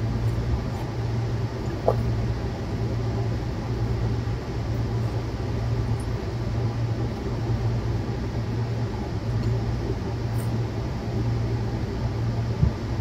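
Steady low hum over an even background noise, with a faint click about two seconds in.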